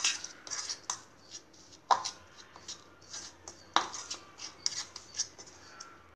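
Spoon scraping and clicking against a bowl while stirring a thick spice-and-oil masala paste, with irregular strokes and a few sharper knocks about two and four seconds in.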